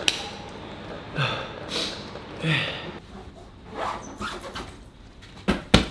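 A few short breathy puffs, then a black hard-shell suitcase being handled, with two sharp clicks near the end.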